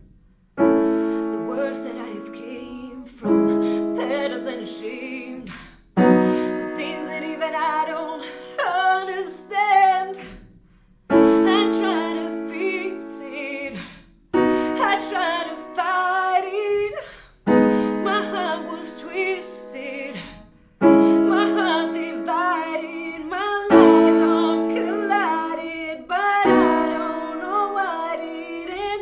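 Piano playing a slow ballad: a sustained chord struck about every three seconds and left to fade, with a melody line above it and a short pause about ten seconds in.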